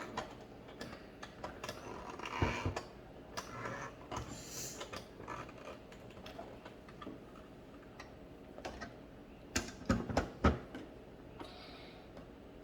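Plastic toy parts clicking and knocking as they are handled, scattered light clicks with a few soft rustles, and a cluster of about three louder knocks near the end.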